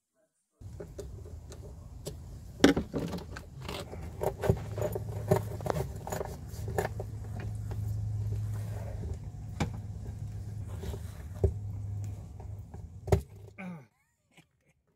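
Irregular clicks, knocks and light rattles as hands work a hose and its metal clamp onto the plastic fittings of a 12-volt water pump. A steady low hum runs under the middle stretch.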